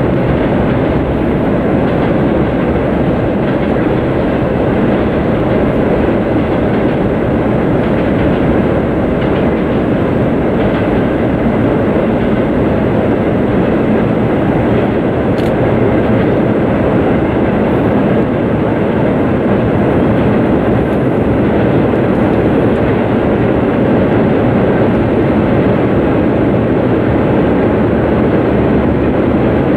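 Norfolk Southern intermodal freight train's cars rolling across a steel truss railroad bridge: a steady, loud noise of wheels on rails.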